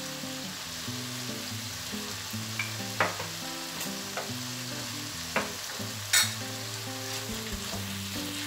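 Minced chicken and meat with grated vegetables sizzling in a frying pan while a wooden spoon stirs and scrapes through it. There are a few sharper scrapes or knocks about three, five and six seconds in; the one at six seconds is the loudest.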